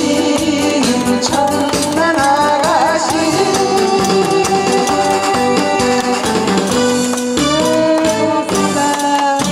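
A woman singing into a microphone over instrumental backing music played through PA speakers. She holds long notes, with a wavering vibrato a couple of seconds in.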